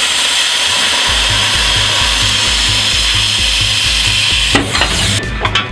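A power tool cutting metal, a steady harsh hiss that stops after about four and a half seconds, followed by a few sharp clanks. Background music with a steady beat plays underneath.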